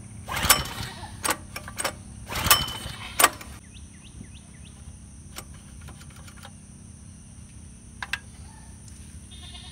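Recoil starter of a gasoline trash pump's small engine pulled twice, each pull a short loud burst, the engine turning over without starting after a shot of carb and choke cleaner. Sharp clicks follow, and a bird chirps a few times about four seconds in.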